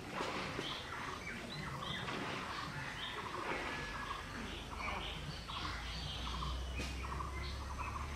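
Birds calling around an open yard: many short chirps and calls overlapping throughout.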